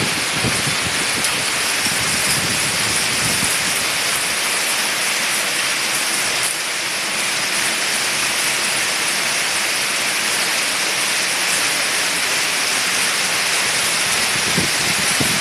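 Heavy hail and rain pouring down on pavement and parked cars, a steady, dense hiss.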